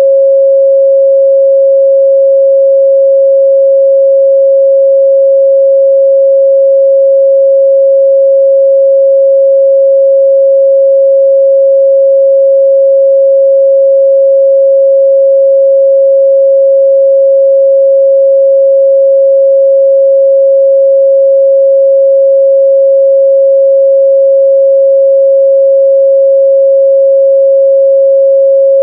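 A continuous, steady 545 Hz pure sine tone at a constant loud level, with no change in pitch or volume.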